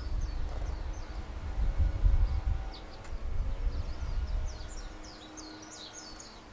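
Small birds chirping in quick, busy bursts, thickest about halfway through. Under them runs a gusty low rumble of wind on the microphone, which fades out near the end.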